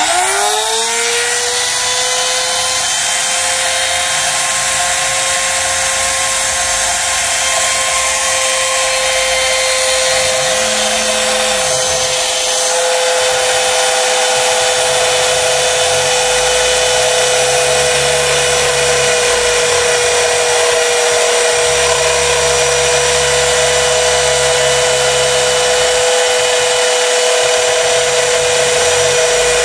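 DIY CNC router's spindle motor switched on and spinning up within a second to a steady high whine, its bit cutting a shallow curved groove in plywood. A lower hum comes and goes underneath as the machine moves.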